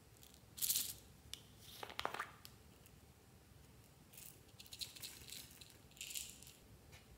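Small plastic jar being handled and opened: its lid clicks and the small bits inside rattle, in a few short bursts.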